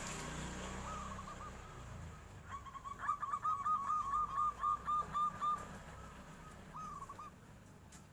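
Zebra dove (perkutut) cooing: a short call, then a fast run of rolling, repeated coo notes lasting about three seconds, and another short call near the end. A low rumble fades out in the first two seconds.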